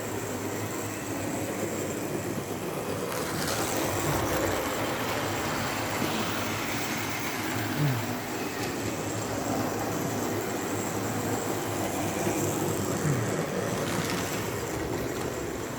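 Electric model trains running around the layout: a steady rumble of motors and wheels on the track, with a few short, louder clicks.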